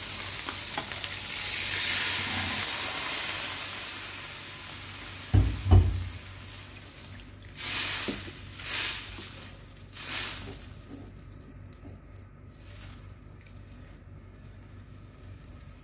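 Water poured into a hot wok of frying fish roe and innards hisses and sizzles loudly for the first few seconds, then dies down as the soup base starts. Two sharp knocks come about five and a half seconds in, followed by a few short, splashy stirs of the broth.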